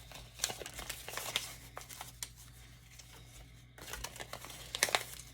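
Paper rustling and crinkling as a folded instruction sheet is handled, with scattered light clicks.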